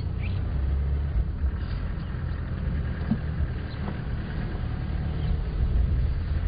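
A vehicle moving slowly along a dirt driveway: a steady low rumble of engine and tyres.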